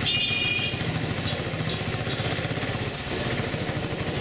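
Auto-rickshaw engine running with a steady, fast putter, heard from the passenger seat, with street traffic around it.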